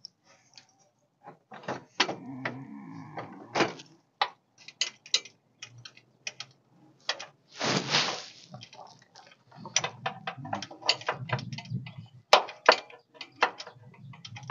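Irregular metal clicks and clanks from a wrench working on a stuck header bolt, with a brief hiss about halfway through.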